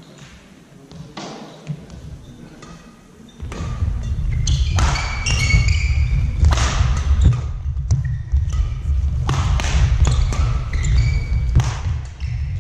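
Badminton play in a sports hall: sharp racket hits on the shuttlecock and short shoe squeaks on the court floor. A steady low rumble comes in about three seconds in and stays under them.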